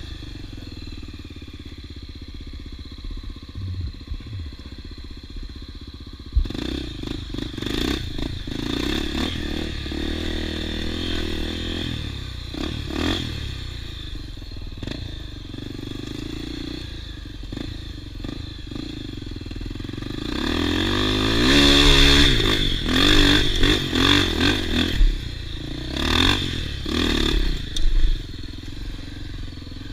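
Off-road motorcycle engines revving on a trail. A sharp knock comes about six seconds in. From about twenty seconds on there are louder repeated surges of revving, with pitch rising and falling.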